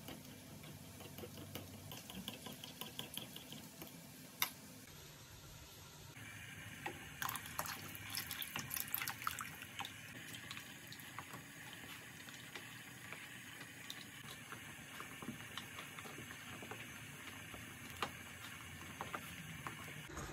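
A metal spoon whisking a flour-and-water slurry in a bowl, with quick light clinks, then the slurry poured into a pot of stew and stirred with a wooden spoon: liquid sloshing and pouring with scattered knocks of the spoon against the pot.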